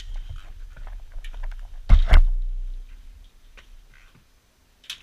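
Handling noise as an RC truck chassis with a camera on it is carried and put down: rubbing, clicks and knocks over a low rumble, with two loud thumps about two seconds in, then it goes quiet apart from a small click near the end.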